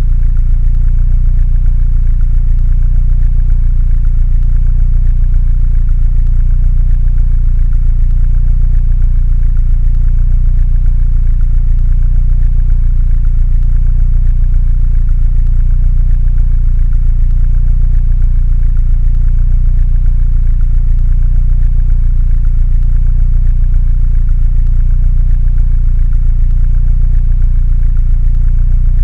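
Mini Cooper engine idling steadily, a low, even running sound that does not change.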